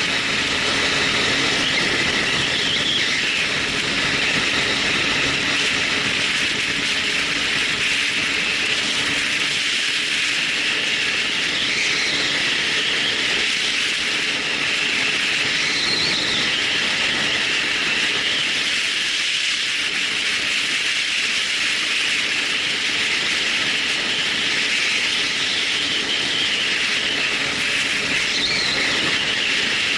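Loud, steady rushing noise with a faint wavering whine on top, as picked up by a Sony HDR-AZ1 action camera's microphone. The owner calls the recorded sound terrible and is unsure whether it is a factory defect or typical of this model.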